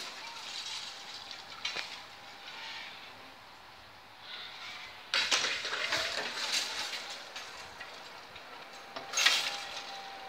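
Railway level crossing activating: a metallic warning bell rings while the red-and-white barrier arms lower, with louder rushing noises about halfway through and again near the end.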